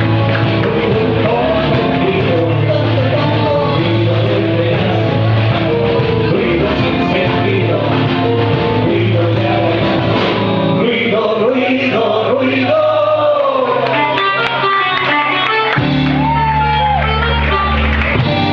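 Rock music: a band with guitar and a singing voice.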